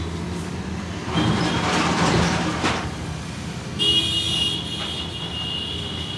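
Street traffic: engines running, with a vehicle passing about a second in. Near the middle a vehicle horn starts, a high steady tone that holds to the end.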